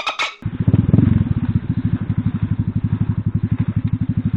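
Single-cylinder four-stroke engine of an Alpha moped idling steadily, a fast even putter. It begins about half a second in, after a brief break with a few clicks.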